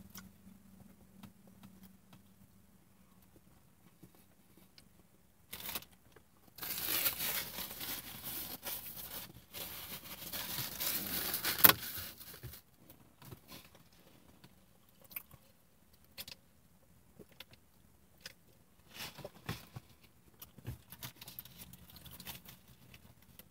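Paper sandwich wrapper rustling and crinkling for about six seconds with a sharp crackle near its end, then scattered small clicks and short rustles of handling.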